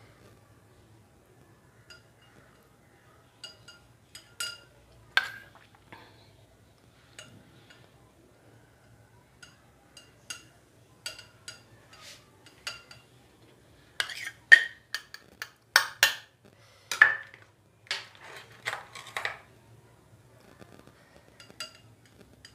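A metal spoon clinking and scraping against a drinking glass and a steel bowl, in scattered single clinks at first, then a quick run of louder clinks about two-thirds of the way through.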